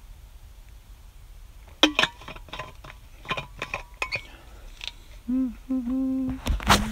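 A run of light clicks and taps, then a man humming a few low, steady held notes in the last couple of seconds.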